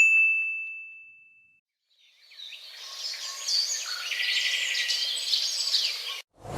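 A single bright ding at the start that rings and fades away over about a second and a half. After a short silence comes about four seconds of birds chirping, which stops suddenly.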